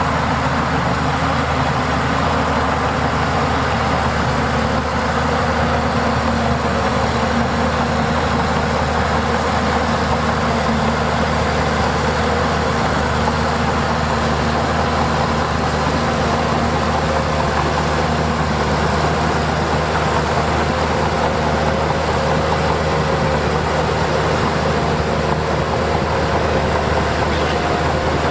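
Heavy diesel engine of earthmoving machinery running steadily with a low, even drone.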